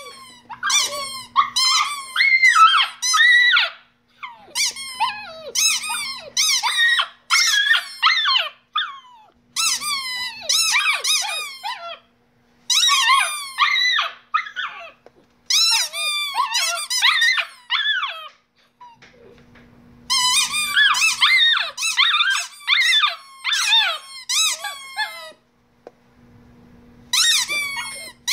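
Squeaky toy squeaking in quick runs of short, high squeaks as a Shiba Inu puppy bites and chews it. The runs last a few seconds each, with brief pauses between.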